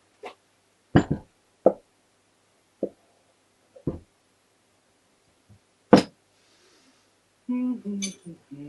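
Metal gearbox parts from a Honda MT5 four-speed transmission knock and clink as the gear shafts are handled and set into the crankcase half: about six separate sharp knocks. Near the end comes a brief low hum.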